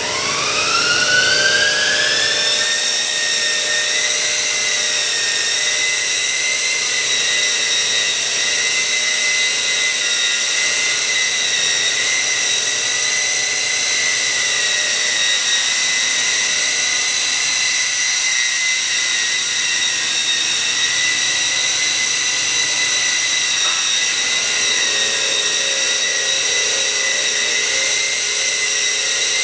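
Twin 180-size electric motors and rotors of a LAMA iv4 coaxial RC toy helicopter spooling up. The high-pitched whine rises over the first couple of seconds, then holds a steady pitch.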